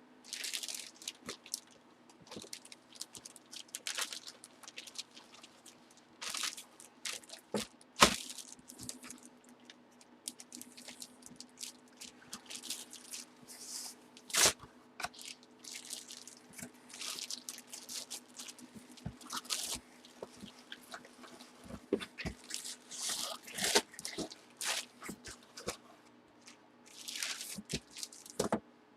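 Trading cards and their packaging being handled: plastic crinkling and rustling in short bursts, with scattered clicks and taps, over a faint steady hum.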